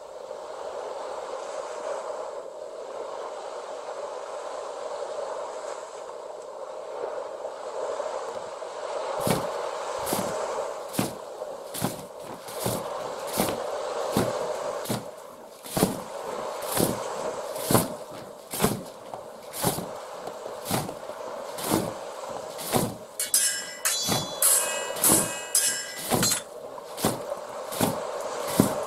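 A steady drone. About nine seconds in, sharp knocks begin at roughly two a second. Near the end they turn into metallic clangs that ring.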